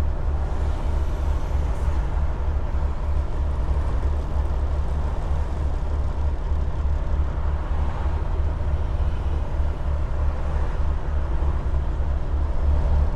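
Semi truck's diesel engine and road noise while driving, a steady low drone.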